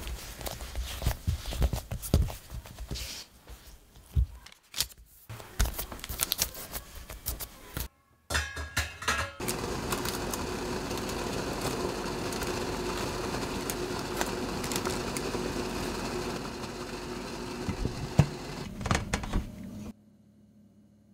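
Hands handling soft dough on a silicone mat, with scattered taps and clicks. Then a stainless-steel steamer on the boil gives a steady hiss of steam for about ten seconds, which cuts off suddenly near the end.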